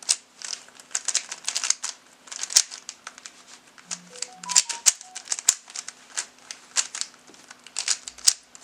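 Plastic 3x3 Rubik's cube being turned quickly by hand: a rapid, irregular run of clicks and clacks as its layers snap round.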